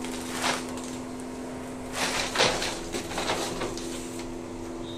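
A few knocks and clicks of hands working at an air compressor's pressure switch over a steady low hum. The compressor does not start: its tank is already full of air.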